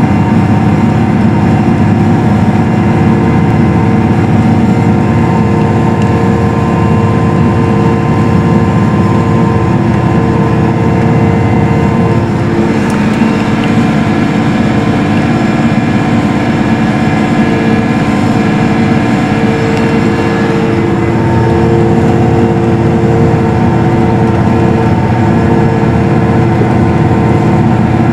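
New Holland T9 four-wheel-drive tractor's diesel engine running steadily under the load of a ten-bottom plow, heard from inside the cab.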